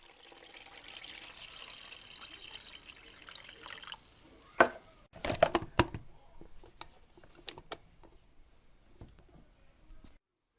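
Water sounds for the first four seconds, then a series of sharp knocks and splashes, cut off suddenly near the end.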